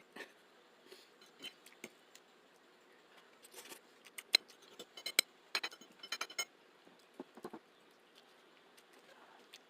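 Close-miked eating sounds of spaghetti being chewed: a scatter of sharp wet clicks and smacks, busiest in the middle, with quieter gaps between.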